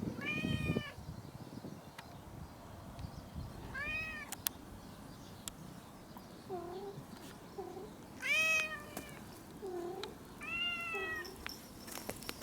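Domestic cat meowing loudly for its food: four long, high meows a few seconds apart, the one about eight seconds in the loudest, with short, lower mews between the later ones. A few sharp clicks near the end.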